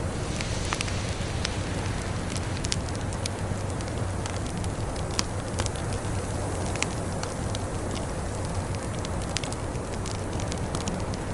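Wood fire in a fireplace crackling and popping at irregular intervals over a steady low rumble of the flames, with one louder pop about five seconds in.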